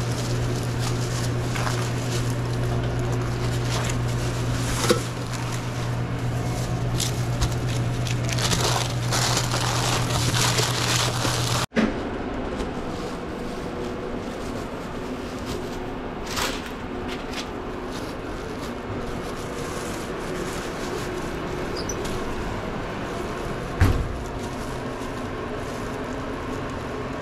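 Sandwich-counter handling noises: crinkling, rustling and light knocks over a steady low hum, which cuts off abruptly about twelve seconds in. A few sharper knocks stand out, the loudest near the end.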